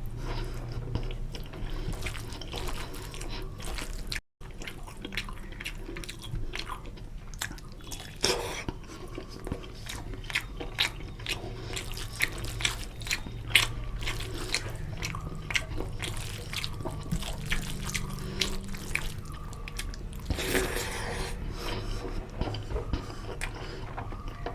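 Close-up eating sounds of a man chewing chicken curry and rice: wet chewing, lip smacks and tongue clicks, with a brief break about four seconds in.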